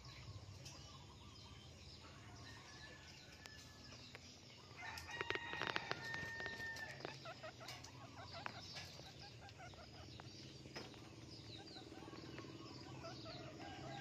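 A rooster crows in the background about five seconds in: one held, pitched call that stands out over the low ambience. Short bird calls and faint high chirps come and go around it.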